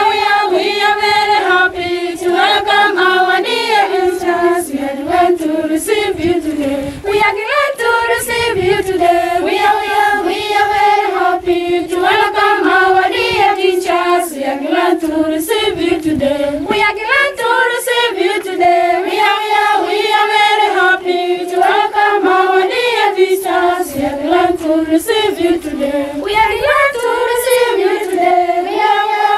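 A group of schoolgirls singing a song together in unison, unaccompanied.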